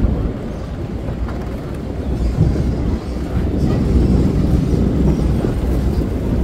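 Boardwalk tram rolling along the wooden boardwalk, heard from on board as a steady low rumble.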